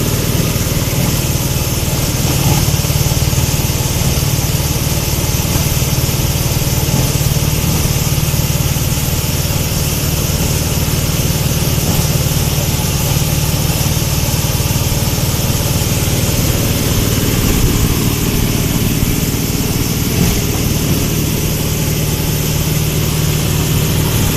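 Multipurpose animal-feed corn grinding machine running steadily, with a low hum.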